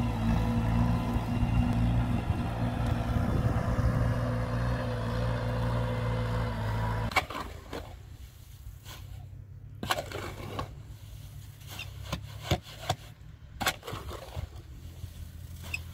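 An engine running steadily, which drops abruptly to a quieter, lower run about seven seconds in. After the drop come scattered sharp knocks and scrapes.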